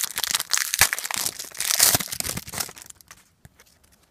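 Foil wrapper of a 2014 Panini Prizm football card pack torn open and crinkled by hand. The rustling stops about three seconds in.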